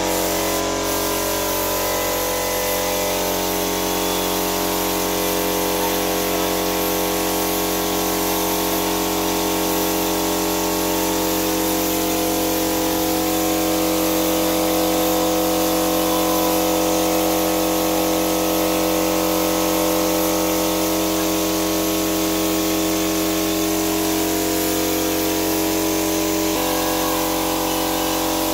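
Spray gun hissing as it sprays PU polish, over the steady hum of the air compressor motor that feeds it; the hum shifts slightly near the end.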